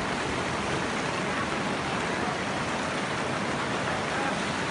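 Steady rushing of a muddy flood torrent swollen by rain, mixed with falling rain, an even wash of noise without a break.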